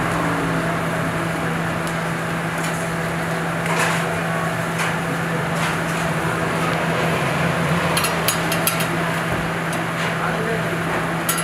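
Charcoal kebab grill with meat skewers cooking: a steady hiss over a low, even hum, with scattered sharp clicks and clinks, a quick run of them about eight seconds in.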